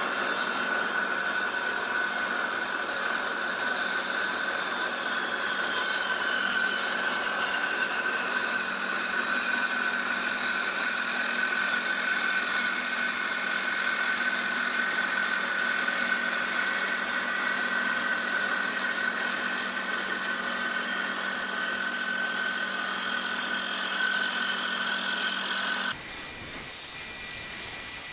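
Metal-cutting torch cutting a friction disc out of 8 gauge steel plate: a loud, steady hiss with a high whine. It stops about 26 seconds in, leaving a softer hiss.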